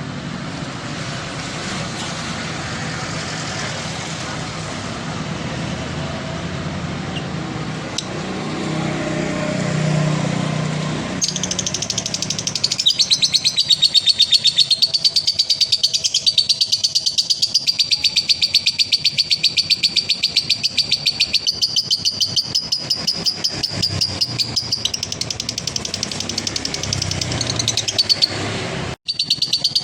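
Steady rushing background noise for about the first eleven seconds. Then a male lovebird breaks into a long, rapid, high-pitched chattering trill, the drawn-out 'ngekek' that hobbyists prize. It runs on with a brief break near the end.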